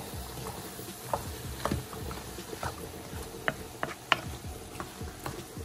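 A wooden spoon stirring seasoned ground meat in a large metal pot, with irregular knocks and scrapes of the spoon against the pot.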